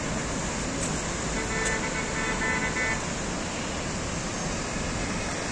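A steady rushing noise throughout. A vehicle horn sounds once, a held note of about a second and a half, starting about a second in.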